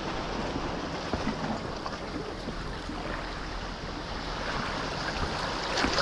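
Steady wash of the sea against a rocky shore.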